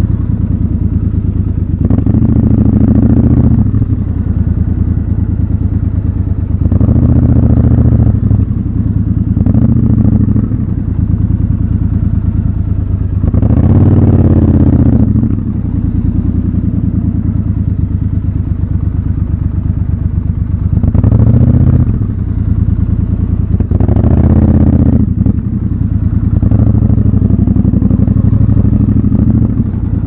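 Triumph Scrambler 1200 XC's parallel-twin engine running at low speed, with about six short throttle openings that each rise and fall in pitch. The longest comes about halfway through.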